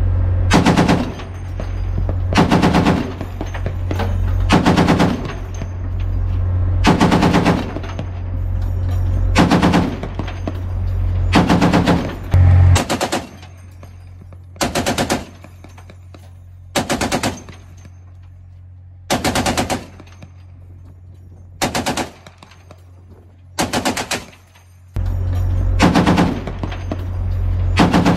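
.50-caliber M2 Browning heavy machine gun firing short bursts of a few rounds each, about one burst every two seconds, thirteen or so in all. A steady low hum runs underneath for much of it.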